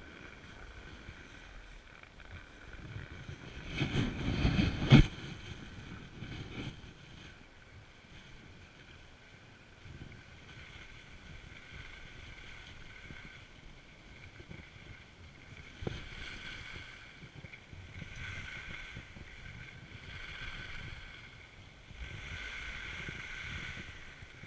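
Skis sliding and carving on packed snow: a scraping hiss that swells with the turns, with wind rumbling on the microphone. A loud gust-like rush ends in a sharp knock about five seconds in.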